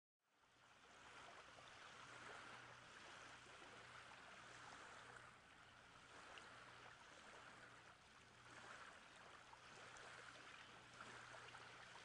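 Faint water ambience, an even wash of moving water that swells and eases gently, with a faint low hum beneath it.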